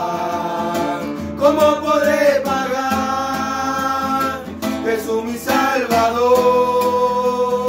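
Male voices singing a Spanish Christian praise song over strummed acoustic guitars, holding two long notes.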